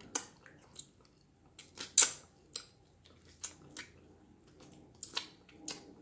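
Close-miked mouth sounds of someone sucking and smacking on a baked turkey wing bone: a string of separate clicks and smacks, the loudest about two seconds in.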